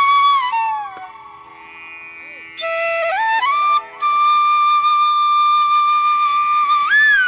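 Background music: a lone flute-like melody of sliding and long-held notes. It fades away about a second in, returns about two and a half seconds in, and then holds one long note that rises near the end.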